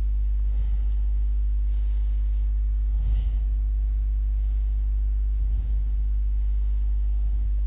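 Steady low mains hum, a 50 Hz drone with overtones, from the powered-up National 2-in-1 cassette radio. A few faint scratches come through as the switches, freshly sprayed with contact cleaner, are worked.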